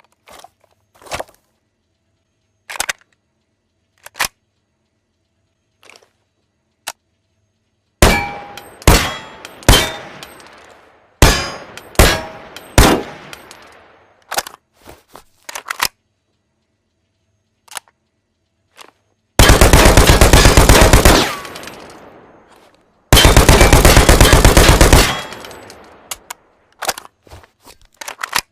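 AKS-74U carbine sound effect. Light mechanical clicks and clacks of weapon handling come first, then about six single shots with ringing tails. Two full-auto bursts of about two seconds each follow, then a few more clicks near the end.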